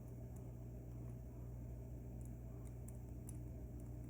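Steady low hum with a few faint, light clicks scattered through it, as small lock pins and springs are set down one by one.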